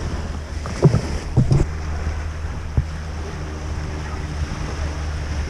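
Wind buffeting the microphone over a steady low hum, with a couple of knocks about a second in.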